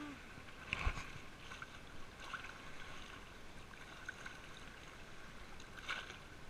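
Choppy lake water lapping and splashing close to a camera held at the surface, with a sharper splash about a second in and another near the end.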